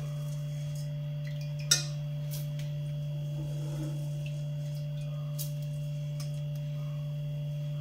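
A steady low hum with a fainter higher tone over it, and one sharp click about two seconds in.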